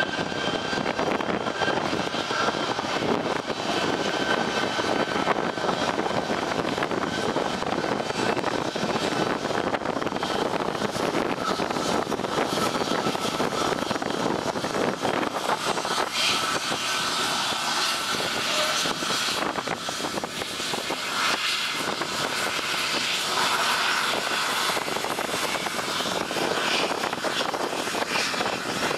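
Boeing C-17 Globemaster III's four Pratt & Whitney F117 turbofan engines running at taxi power as the jet rolls past: a steady rushing roar with a whine in it.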